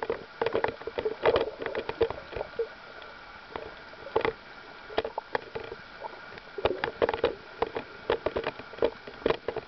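Muffled underwater sound picked up by a camera in a waterproof housing: irregular clicks and crackles with bubbly sloshing of water. It goes quieter for a couple of seconds about a third of the way in, then picks up again.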